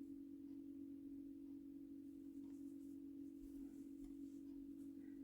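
Near silence apart from a faint steady hum and a few soft ticks.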